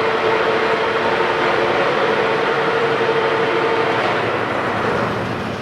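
Monarch K16 engine lathe running at about 942 RPM: steady mechanical running noise with a steady whine that fades out about four seconds in.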